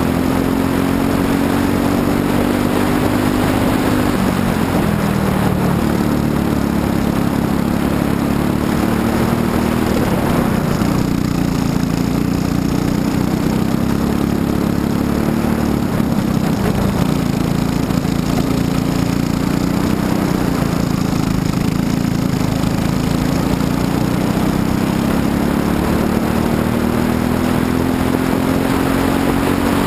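Briggs & Stratton LO206 single-cylinder four-stroke kart engine running at racing speed. Its pitch climbs steadily and drops sharply off the throttle for corners about four seconds in, around ten seconds, around sixteen seconds and again at the very end.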